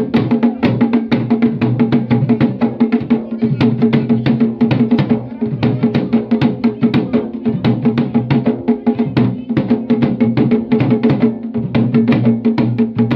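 Dhol drum beaten with a stick in a fast, unbroken dance rhythm, over a steady droning tone that holds one pitch throughout.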